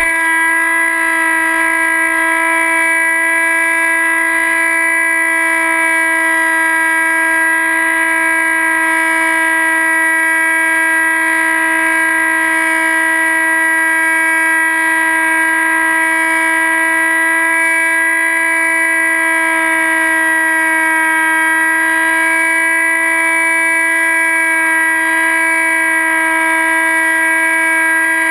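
Dynam Hawk Sky RC plane's electric motor and propeller running at full throttle, heard from a camera on the plane: a loud, steady whine that holds one pitch.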